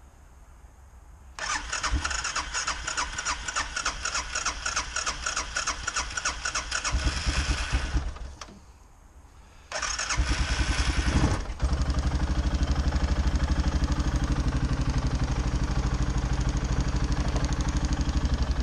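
ATV engine being cranked over by its electric starter after sitting for over a year on old fuel, with a jump starter helping the new battery. The first try turns over rhythmically for about six seconds and briefly starts to catch before stopping. The second try catches after a couple of seconds and settles into a steady idle.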